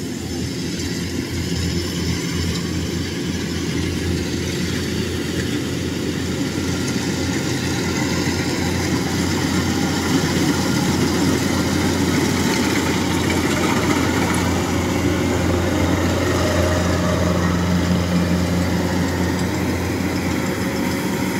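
Kubota crawler combine harvester's diesel engine and threshing machinery running steadily under load while harvesting rice, with a strong low hum. It grows louder over the first half as the machine drives past close by.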